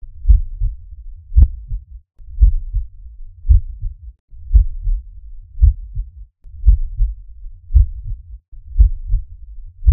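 Human heartbeat: a slow, steady pulse of deep, low thumps, about one beat a second.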